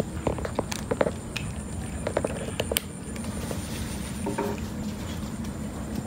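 A cat crunching dry kibble: irregular, crisp chewing clicks, heaviest in the first three seconds.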